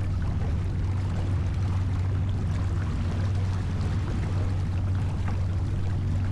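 Water rushing and splashing along a J24 sailboat's hull, with wind noise and a steady low hum underneath.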